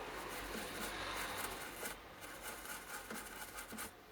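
Faint rubbing and light handling noise, with a few small clicks, from a small surface-mount transistor being cleaned to read its markings. The rubbing is steadier in the first two seconds and thins out to scattered light touches after that.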